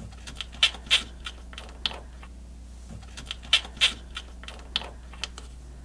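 Irregular light clicks and taps of a snowmobile track stud and its fittings being handled and worked loose by hand on the rubber track.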